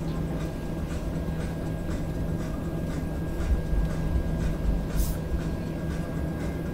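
Airliner cabin noise while taxiing: the jet engines at idle and the airframe give a steady low rumble with a constant hum, with faint scattered clicks and a brief hiss about five seconds in.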